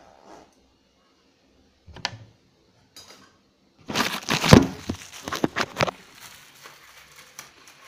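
Phone-microphone handling noise: rustling and bumps as the phone is moved about, with a brief knock about two seconds in and a dense run of rubbing and knocks from about four to six seconds in.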